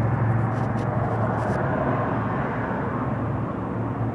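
Steady low mechanical hum under outdoor background noise, with a few faint ticks in the first second and a half.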